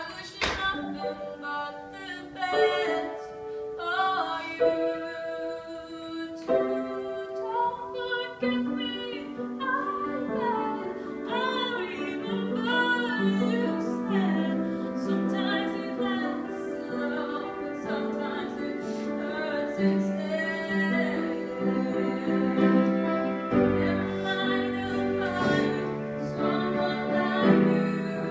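A girl singing a melody with piano accompaniment, her held notes wavering over steady piano chords.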